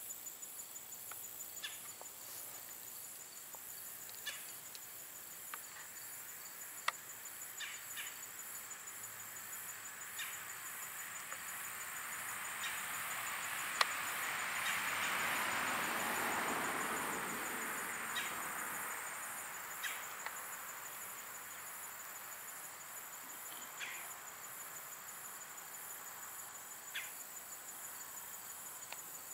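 Steady, high-pitched trilling of crickets. A broad rushing noise swells up and fades away over several seconds midway, and there are a few sharp clicks.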